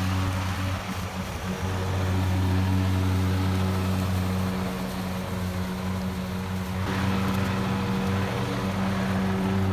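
Gas-powered lawn mower engine running at a steady speed, with a louder rushing hiss joining about seven seconds in.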